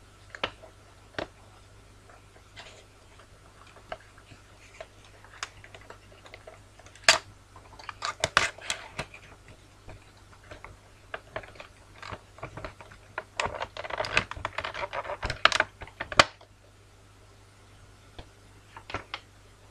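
Funko Pop cardboard box and its packaging handled as the vinyl figure is taken out: scattered clicks and crinkles, growing into a dense, louder run of crackling in the second half that stops a few seconds before the end.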